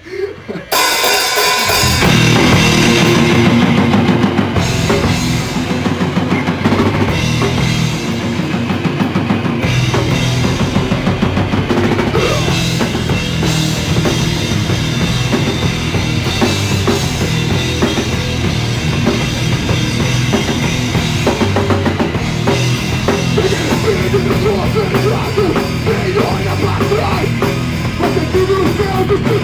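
Live rock band, heavily driven drum kit and band, launching into a song under a second in and playing on loud and dense, recorded on a mobile phone.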